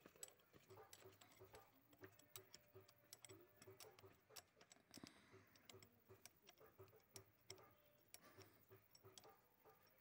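Faint, irregular light metallic clicks and taps from the parts of a Tata Sumo starter motor being handled as its end-cover nuts are fitted by hand.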